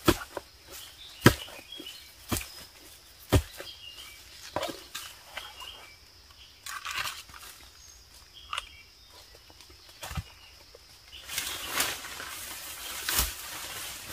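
Sharp knocks or chops, mostly about a second apart in the first few seconds, from someone cutting at plants at ground level; near the end, steady rustling of leaves and undergrowth as she walks through it. Faint bird chirps in the background.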